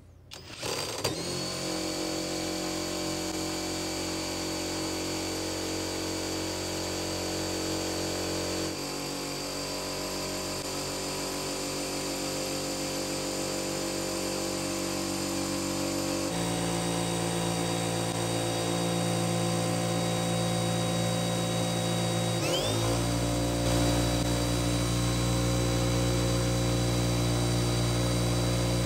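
Cordless 12-volt brushless impact drivers, a Skil and a Milwaukee M12 Fuel, running at full speed to spin a bench shaft-and-pulley rig for an RPM test. Each run is a steady motor whine. The pitch shifts abruptly with each new run, and there is a brief rising glide about 22 seconds in as one spins up.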